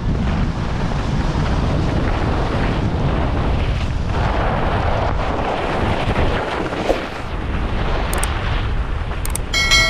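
Wind buffeting a GoPro HERO11's microphone, with skis scraping and hissing over packed snow during a downhill run: a loud, steady rumble. A short ringing tone comes in right at the end.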